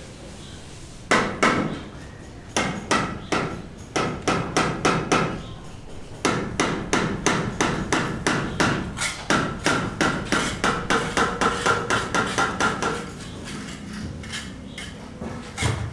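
Hammering: a hammer striking again and again in runs of blows, about three a second at its steadiest, each blow with a short ring.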